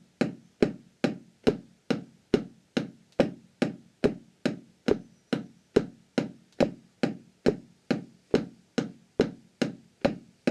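Drumsticks striking a rubber practice pad in an even pulse of a little over two strokes a second, four strokes with one hand then four with the other.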